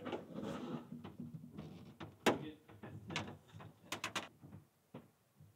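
Tape being pulled off a roll and pressed along the edge of a race car's plexiglass rear window: a series of short rips and taps, the sharpest about two seconds in and a quick cluster around four seconds.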